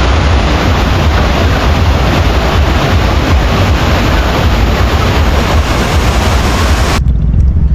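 Steady loud rush of a waterfall's cascading water. It cuts off abruptly near the end, giving way to a low engine hum.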